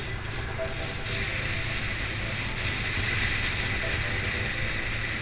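Motorcycle riding noise: a Kawasaki Versys 650's parallel-twin engine running steadily under wind rushing over the microphone at street speed.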